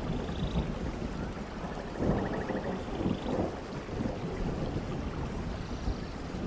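Rain and thunder ambience: a steady rain hiss with low rumbles of thunder swelling about two and three seconds in.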